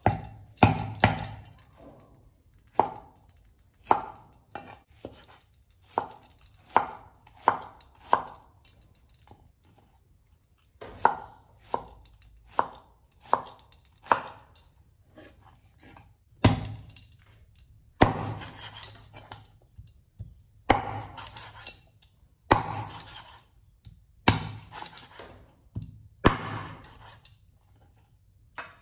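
Large cleaver chopping food on a wooden cutting board: irregular sharp knocks, with several longer, rasping strokes in the second half.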